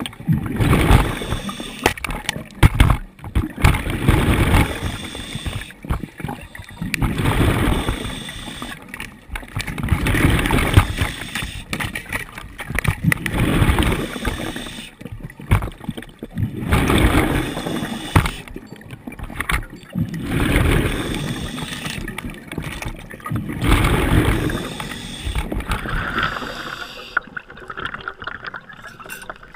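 Scuba diver breathing through a regulator underwater: exhaled bubbles gurgle out in bursts about every three seconds, with the quieter draw of each inhale between them.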